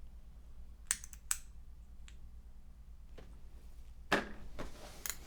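Sharp clicks and a short scraping rattle as a push-on spade connector is worked loose from a PC power-supply push-button switch: two clicks about a second in, then a burst of clicking near the end.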